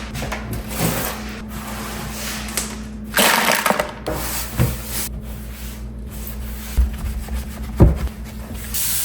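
Irregular scraping and handling noises of hand work on a tiled backsplash, with a louder stretch about three seconds in and a sharp knock near the end. A steady hiss starts just before the end.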